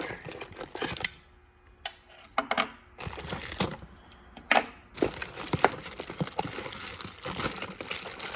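Packaging being handled and opened by hand: crinkling and crunching in short bursts, then steady rustling with small clicks from about five seconds in.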